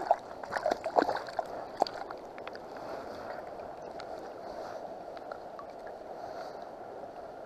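A few splashes in the first two seconds as a hooked fish is grabbed by hand at the water's surface and lifted out, then the steady rush of flowing river water.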